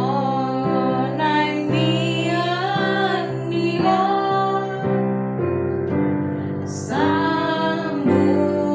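A woman singing a song to digital piano accompaniment, the piano holding sustained chords under the voice.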